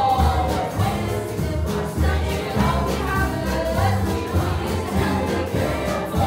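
A show-tune ensemble number: a chorus of voices singing together over instrumental accompaniment with a steady, bouncing bass line.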